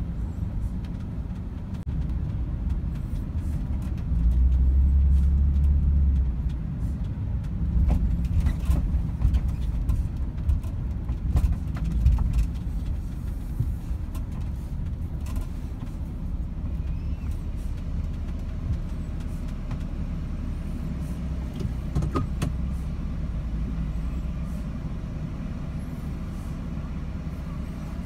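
Low, steady rumble of a van driving slowly on packed beach sand, heard from inside the cabin, with a few faint clicks and rattles. It swells louder for a couple of seconds about four seconds in.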